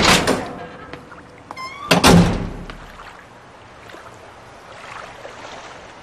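Two heavy thuds about two seconds apart, with a short rising squeak just before the second, then a faint steady hiss.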